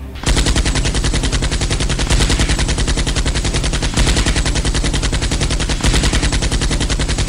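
Rapid, unbroken automatic gunfire: a machine-gun sound effect dubbed over Nerf blasters firing. It starts abruptly a moment in.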